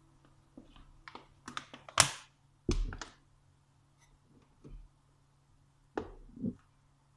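Kitchen handling sounds: a run of light clicks and taps, a sharp knock about two seconds in, then dull thuds, the last two close together near the end.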